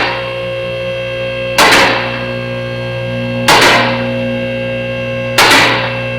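Vehicle lift raising the car: its hydraulic pump motor hums steadily, with a loud clack about every two seconds as the lift's safety locks ratchet over each catch.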